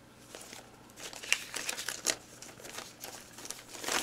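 Sheets of letter paper rustling and crinkling as they are handled and unfolded, in a run of short crackly rustles starting about a second in.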